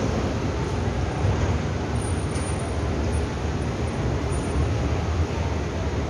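Steady low rumble of a Taipei Metro train at the station platform.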